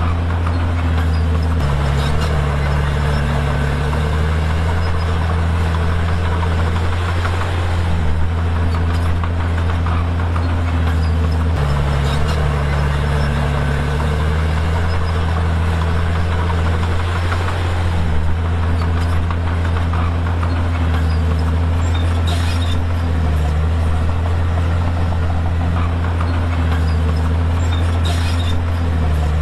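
Komatsu D51PX bulldozer's diesel engine running loudly and steadily, its pitch dipping and recovering every five or six seconds.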